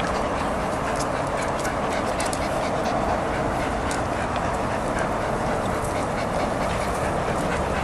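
A dog swimming up to a reedy lake bank close by, heard against a steady hiss.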